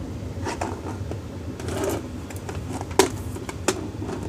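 Plastic video case handled and turned over in the hands: a few light clicks and knocks, the sharpest about three seconds in, with a brief rustle a little before it.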